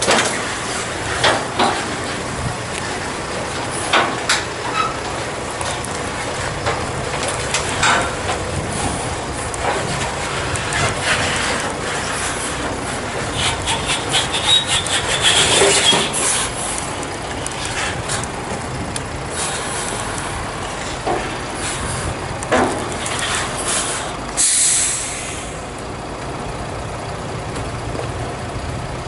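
An engine running steadily while a small vehicle rolls down a car-transporter trailer's steel ramps, with scattered metal clanks and knocks. A short burst of air hiss near the end.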